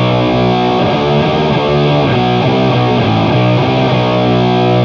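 Heavily distorted electric guitar playing a slow doom-metal riff of sustained notes that shift in pitch every half second or so, through a Boss HM-2 chainsaw distortion blended with a Boss FZ-2 Hyper Fuzz into an Orange OR120 Overdrive amp.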